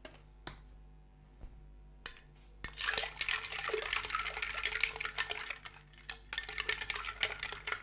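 Ice cubes clinking against a glass pitcher of iced tea as they are put in and stirred. A few single clinks come first, then continuous rattling clatter from about three seconds in.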